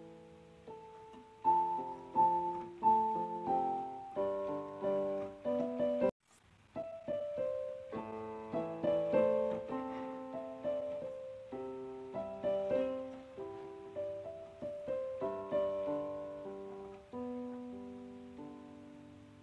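Background piano music: a gentle melody of single notes and chords, each note striking and fading. It cuts out for a moment about six seconds in, then carries on.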